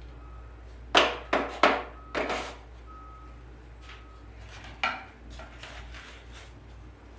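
Handling noise as a silk leaf stem is pushed into a wicker basket arrangement: a quick run of four sharp rustling knocks about a second in, then one more near five seconds.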